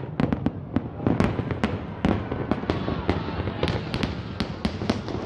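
Fireworks display: many sharp bangs and crackles from bursting shells in an irregular stream, over a steady low rumble.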